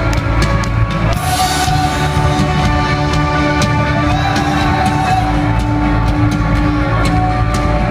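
Live rock band playing, with drums and guitars, recorded from the audience on a phone. A cymbal crash comes about a second in.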